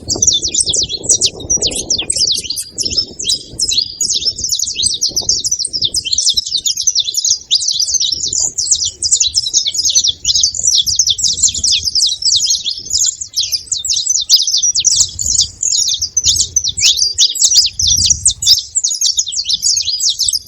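Several saffron finches chirping and singing together, a dense, continuous chatter of short high notes overlapping one another.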